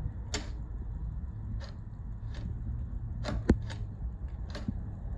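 Scattered light clicks and taps of metal parts being handled at the presser foot bar of a Juki industrial sewing machine, about seven in all, the sharpest about three and a half seconds in, over a steady low hum.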